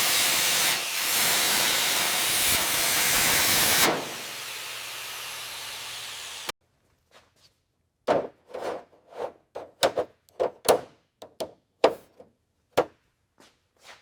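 Metal-working tool cutting rusted floor-pan steel: a loud, steady hiss that drops to a quieter hum about four seconds in and cuts off sharply a couple of seconds later. It is followed by a run of short, sharp cracks at irregular intervals.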